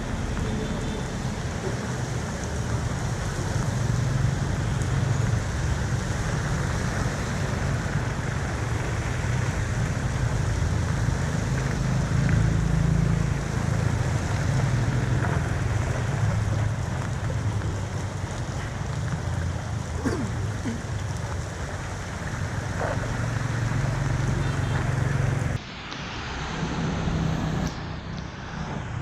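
Steady rushing of floodwater draining away, with a low rumble and wind buffeting the microphone. The sound changes abruptly near the end.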